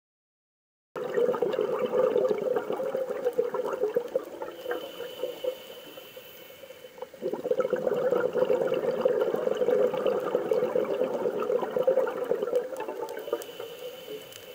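Rushing, bubbling water heard underwater, muffled and busy. It fades a little in the middle and surges back suddenly about seven seconds in.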